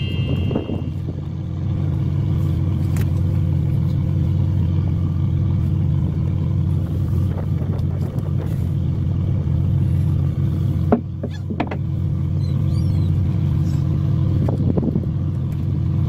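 A fishing boat's engine running steadily, a constant low drone with a few short knocks and rattles about eleven seconds in.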